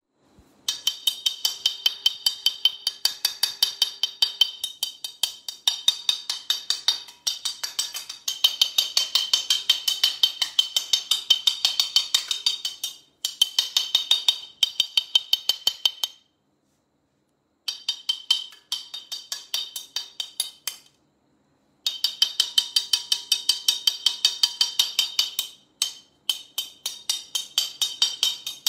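A metal spoon rapidly striking a glass saucepan lid, several even clinking strikes a second, each ringing with a high tone. The tapping breaks off a few times, with the longest stop of about a second and a half just past the middle.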